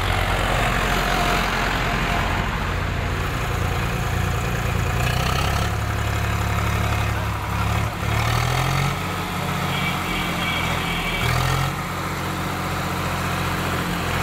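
Swaraj 735 FE tractor's three-cylinder diesel engine idling steadily, its pitch lifting briefly a couple of times.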